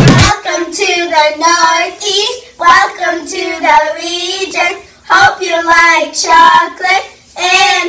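Young girls' voices singing a short song without accompaniment, in phrases with brief pauses between them.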